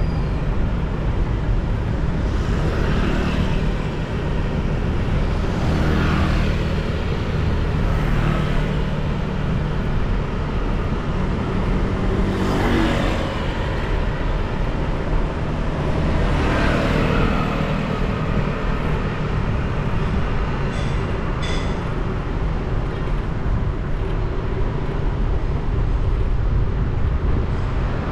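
Busy city road traffic heard from a moving motorcycle: a steady low rumble, with several vehicles passing, each swelling up and fading away.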